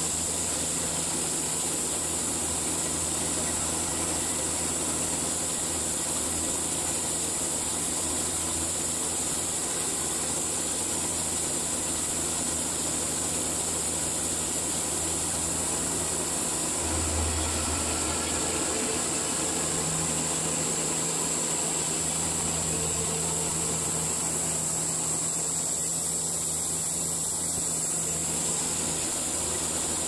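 Baker portable band sawmill running steadily while milling a cedar log, a constant mechanical drone with a low engine hum and a high hiss. The low hum swells briefly about 17 seconds in.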